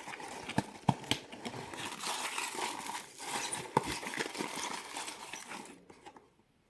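Cardboard advent-calendar compartment being opened and its contents handled: rustling and crinkling with several sharp taps and clicks, cutting off suddenly about a second before the end.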